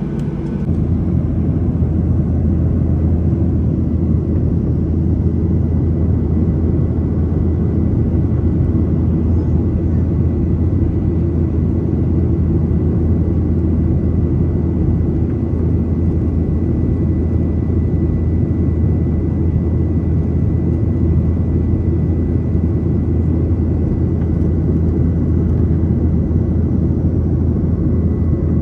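Steady jet-engine and airflow noise heard inside an airliner cabin: a strong low drone with a thin, steady whine above it, growing slightly louder about a second in.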